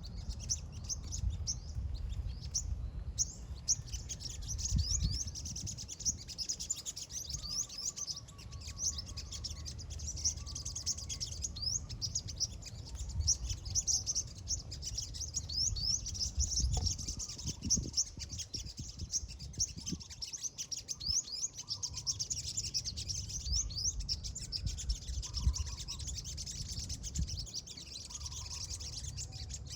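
Small birds chirping continuously in a rapid, dense stream of short, high, downward-sliding chirps, over a low rumble.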